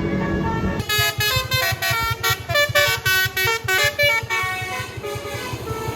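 A tour bus's basuri horn, a multi-note musical air horn, playing a fast melody of short notes that step up and down, from about a second in until about four seconds in, over a quick low pulse.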